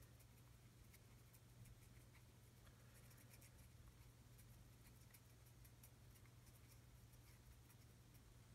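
Near silence: a low steady hum of room tone, with faint light ticks and scratches of a fine paintbrush dabbing dry rust pigment onto a plastic model part.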